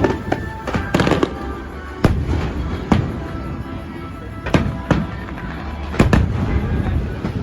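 Aerial fireworks bursting, with sharp bangs roughly every second over a continuous rumble and music playing underneath.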